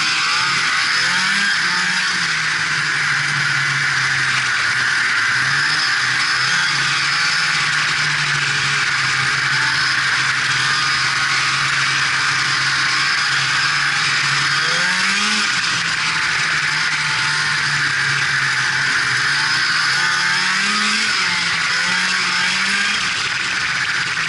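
Polaris Indy Sport 340 snowmobile's two-stroke engine running under way at steady throttle, over a constant hiss of track and wind noise. The engine pitch rises briefly a few times: about a second in, around fifteen seconds in and around twenty-one seconds in.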